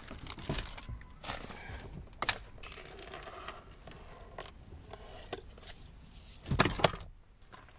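Plastic glove compartment of a Toyota Camry being handled and pulled free of the dashboard: scattered plastic knocks and rattles, with a couple of louder knocks near the end.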